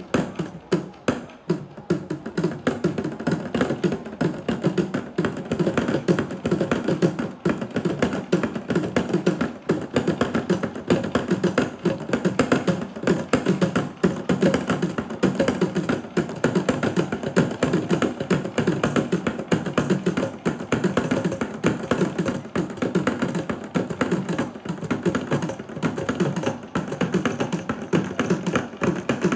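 Sri Lankan folk drums played fast and without pause. A horizontal barrel drum is struck with the hands and a pair of small drums is beaten alongside it, giving a dense, driving rhythm of sharp strokes.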